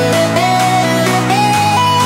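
Electronic backing music with a steady synth melody and bass notes changing about every second.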